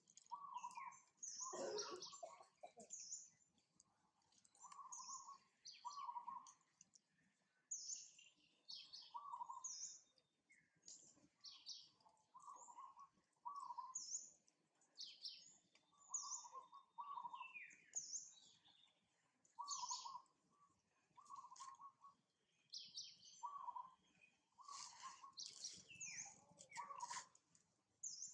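Faint birdsong: many short high chirps, with a lower short call note repeated every second or two.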